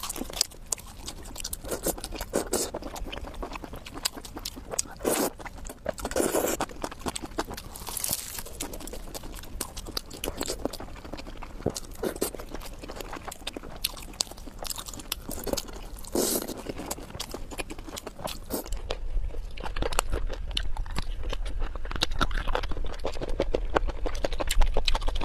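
Close-miked eating sounds: a person chewing and biting food, with a steady run of small crunches and louder bursts every few seconds.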